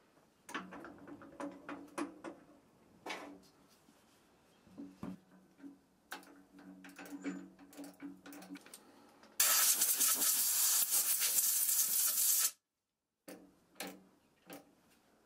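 Clicks and knocks of hands handling a linden crotch blank and the metal lathe chuck, with a faint low hum under them. Then a loud, steady hiss for about three seconds that stops abruptly, followed by a few more clicks.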